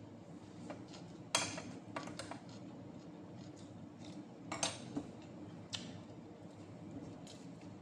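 A handful of short, light clinks of tableware: a plate and glass bowl knocked by a hand or spoon while eating. The sharpest comes about a second and a half in, another just past four and a half seconds.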